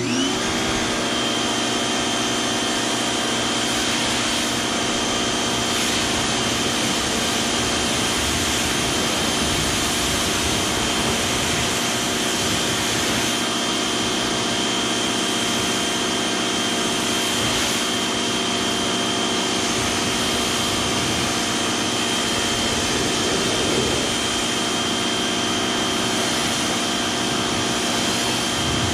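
Greenworks 2000 PSI electric pressure washer's motor and pump starting up, its pitch climbing over the first second, then running steadily with a constant high whine.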